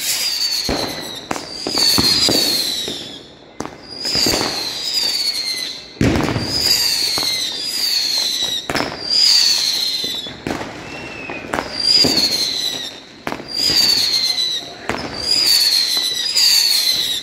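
Fireworks: whistling shots going up one after another, about a dozen high whistles that each fall slightly in pitch, often two in quick succession, among sharp bangs and crackles.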